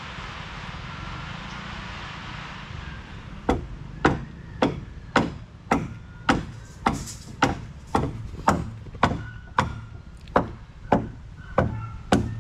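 Repeated blows of a tool striking wooden boat timber, about two a second, starting a few seconds in and keeping an even beat, each with a short ringing tail.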